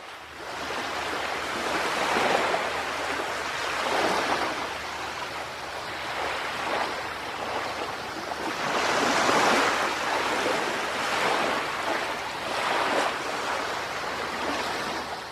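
Sea waves washing in over rocks at the shore: a steady rushing noise that swells and ebbs every few seconds.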